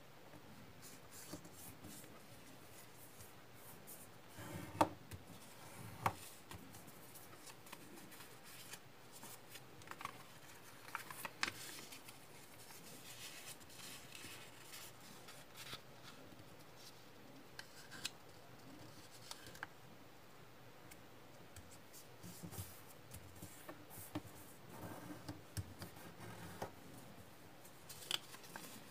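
Origami paper being folded and creased by hand: soft rustling and scraping with short sharp crinkles where the folds are pressed flat, the sharpest at about five and six seconds in.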